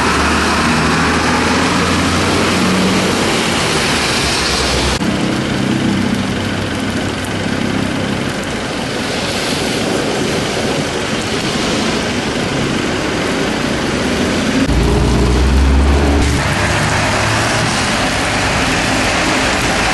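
Traffic driving through steady rain on a wet street: engine noise and tyres hissing on the soaked road. A heavy vehicle passes loud and close about fifteen seconds in.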